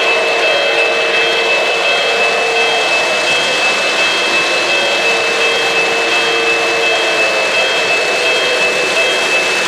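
Three-rail O-gauge model trains running past: a steady loud rolling noise of metal wheels on track, with a thin high whine held over it.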